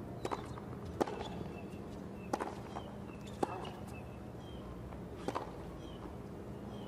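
Tennis ball struck by rackets in a rally on a hard court: sharp pops of racket hits and bounces, one to two seconds apart, five or so in all.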